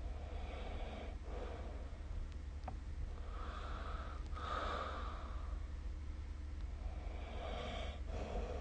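A sleeping person breathing noisily, three breaths in and out with a snorting rasp, over a steady low hum.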